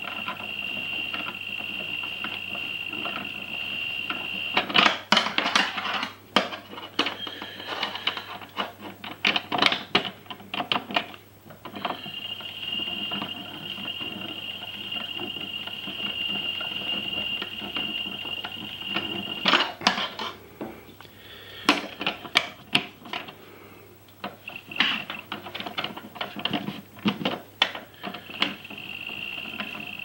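Toy washing machine running a wash: its small drum motor gives a steady high whine while the drum turns with water and wet hankies inside. Twice the whine stops for several seconds, and irregular clicks and clatter take its place before the steady whine comes back.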